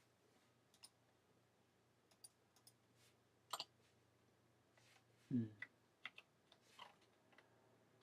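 Sparse, quiet keystrokes on a computer keyboard: scattered single clicks a second or so apart, with a brief low sound about five seconds in.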